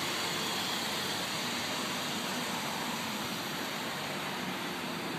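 Steady, even outdoor hiss with a faint low hum underneath, without change.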